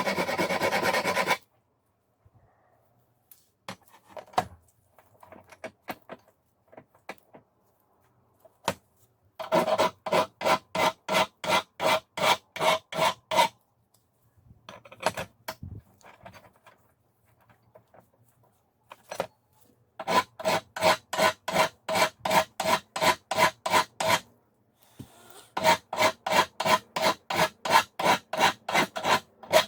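Steel cold chisel being filed by hand, in runs of quick back-and-forth file strokes, about four a second, with a metallic ring. The runs stop and start three times, with quieter scraping and handling between them.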